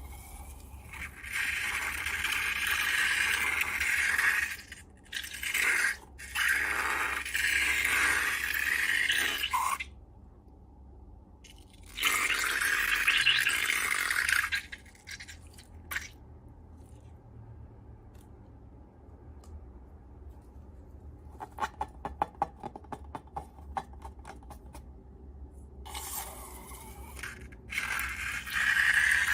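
Scraping and stirring of slime-making materials in several bursts a few seconds long, with quiet gaps between them. About two-thirds through comes a run of fast crackling clicks.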